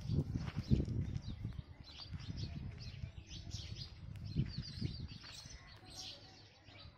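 Small birds chirping, many short high calls one after another, over a low rumble that is loudest in the first second.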